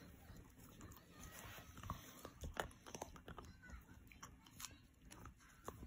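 Miniature schnauzer gnawing a knotted rawhide chew bone: faint, irregular crunching and clicks of teeth on the chew.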